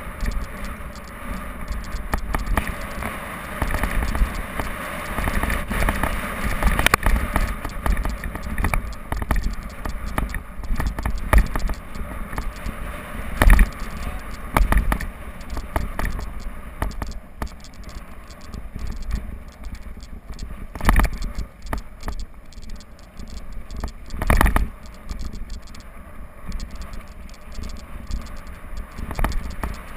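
Mountain bike riding fast down a dirt and loose-stone trail: tyres scraping and crunching over the ground, with the bike rattling throughout. Several sharp knocks from bumps and drops, the loudest about halfway through and two more near the two-thirds mark.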